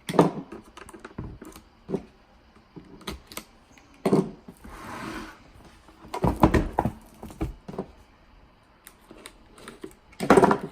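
Hands working a tool set's packaging open: irregular clicks, taps and knocks of plastic and cardboard being handled, with a short rustling scrape about five seconds in and a louder clatter near the end.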